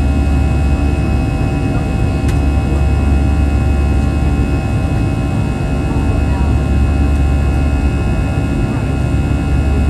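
Cabin noise inside an Airbus A319-112 climbing out after takeoff: its CFM56 turbofan engines make a steady deep rumble with several held whining tones over the rush of air.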